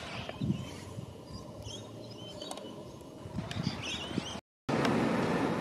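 Outdoor ambience with birds chirping and a few low bumps on the microphone. After a brief cut about four and a half seconds in, a louder steady background noise takes over.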